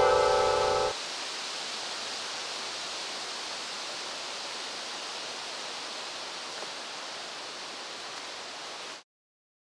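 A steady, even rushing hiss that cuts off suddenly near the end, with the tail of a ringing musical chord fading out in the first second.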